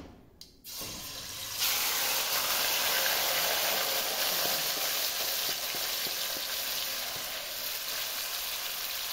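Marinated chicken pieces dropped into hot mustard oil with mustard seeds in an aluminium pot, sizzling and frying. A brief clink from the bowl comes first; the sizzle starts about a second in, jumps louder soon after and holds steady while a wooden spatula moves the pieces.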